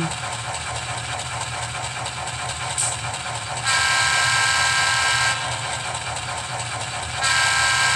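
Rapido SD10 model locomotive's sound decoder playing a diesel horn through the model's speaker: one long blast about three and a half seconds in, and a second starting near the end. Both sound over the steady idling diesel engine sound.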